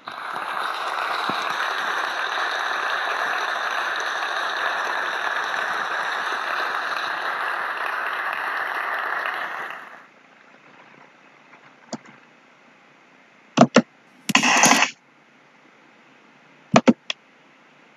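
Audience applauding for about ten seconds, then cut off suddenly. A few sharp clicks and a brief clatter follow near the end.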